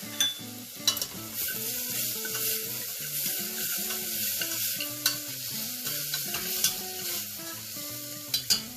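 Chopped onions frying in oil and ghee in a pressure cooker pot, sizzling steadily while being stirred as they brown. A few sharp clicks of the spoon against the pot, two close together near the end.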